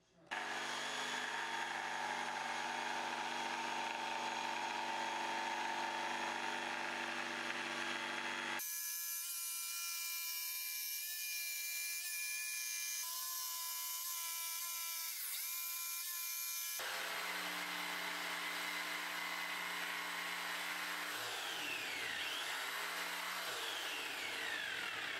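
DeWalt jigsaw running steadily as its blade cuts along a curved line through a thin plywood sheet. The tone changes abruptly twice.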